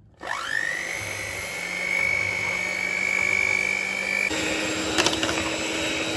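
Electric hand mixer starting up with a rising whine and then running steadily, its beaters whipping cooled custard, milk and whipped-cream powder in a stainless steel pot. Its tone changes abruptly about four seconds in, with a few clicks shortly after.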